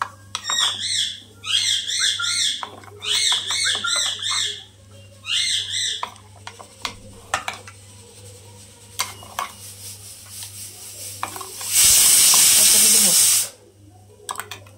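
A bird calling in several quick runs of repeated rising-and-falling high notes, over faint clicks of food being mixed by hand in a steel bowl. Near the end a loud hiss lasts under two seconds.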